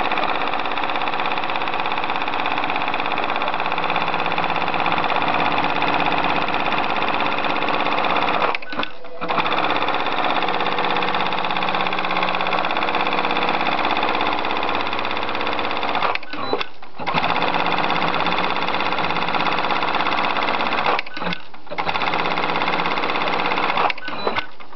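Computer-programmed sewing machine running steadily as it stitches a preset pattern, its frame shifting the fabric under the needle. It stops briefly three times, then resumes.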